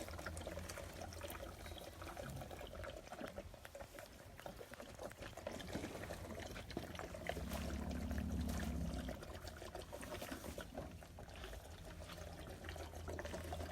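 Orphaned baby elephant drinking milk formula from a bottle: wet sucking and liquid sounds with many small clicks. A low steady hum rises for about a second and a half around eight seconds in.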